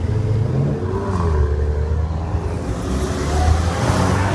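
A sports car's engine running and accelerating as it drives past, the rumble staying loud while a rushing hiss builds over the second half.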